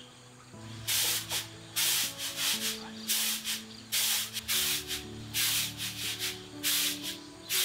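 Uncooked rice being winnowed in a round woven bamboo tray: repeated rushing swishes as the grains are tossed up and fall back onto the woven surface, irregularly one to two a second, starting about a second in.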